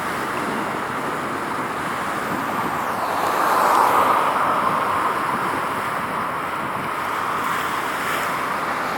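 Steady road-traffic noise, with a passing vehicle swelling louder about three to five seconds in.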